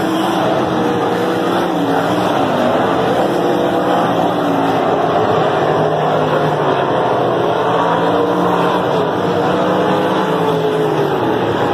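A field of winged sprint cars racing on a dirt oval: several loud V8 engines running hard together, their pitches rising and falling over one another as the cars circle and pass.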